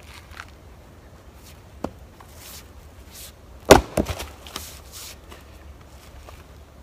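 A Fiskars splitting axe strikes a log round once, about halfway through, with a single sharp crack as it splits the wood. A couple of lighter knocks follow right after, and there is one small knock earlier.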